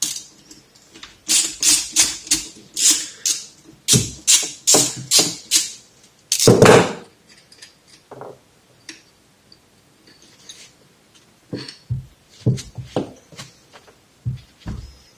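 Metal tools and fork parts clinking and knocking on a workbench as a moped's fork leg is dismantled: a quick series of sharp clicks, a louder clatter about six and a half seconds in, then sparser, fainter knocks.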